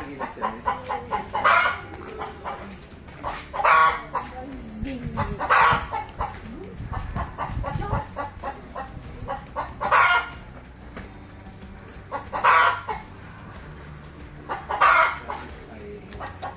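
Chickens clucking steadily, with six louder short calls a couple of seconds apart. A low rumble comes in briefly around the middle.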